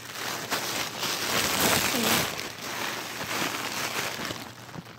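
Rustling and crinkling of a freshly cut-open package being handled, continuous and uneven in loudness.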